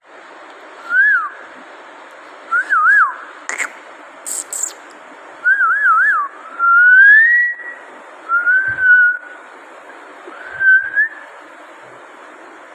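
Six short, clear whistled phrases: quick warbling trills and slow rising glides, set over a steady hiss. A few sharp clicks fall in the middle.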